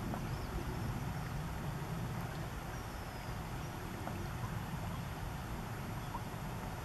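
Steady outdoor background noise: a low rumble with a fainter hiss above it, and a few faint high chirps near the start and about three seconds in.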